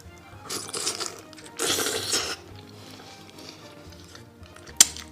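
Two noisy, wet mouth sounds of someone eating a sauce-coated braised chicken foot, each lasting under a second, in the first half. Faint background music follows, with one sharp click near the end.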